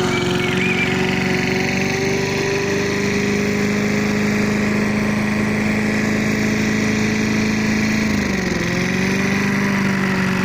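A freshly repaired petrol lawnmower engine running steadily under test. Its pitch dips briefly about eight seconds in, then recovers.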